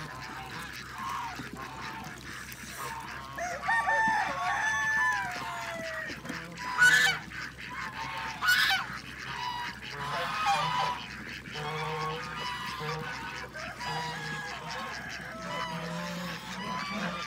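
Farmyard waterfowl and chickens calling: a run of overlapping calls, several gliding down in pitch, with two loud, short calls about seven and eight and a half seconds in.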